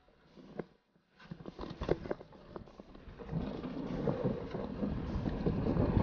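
Mountain bike rolling down a rough trail: scattered sharp knocks and rattles, then from about halfway a rumble of tyres over the ground that grows steadily louder.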